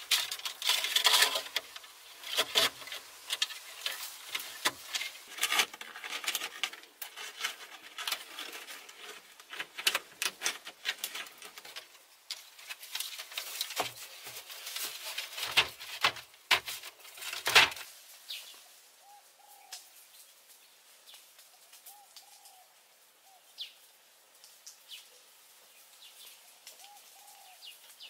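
Split bamboo slats knocking, clattering and rustling as they are handled and laid in a treehouse floor and wall, in quick irregular clusters. After about eighteen seconds this stops and it goes quieter, with a bird giving a few soft low calls.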